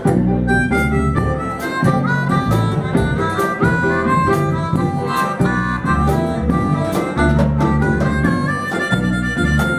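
Live blues music: a harmonica playing a stepping melody line over guitar and a low bass line, with a steady beat.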